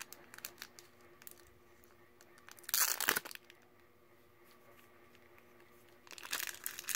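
Thin clear plastic bag crinkling as it is torn open by hand, with a louder burst of crinkling about three seconds in and more crinkling near the end.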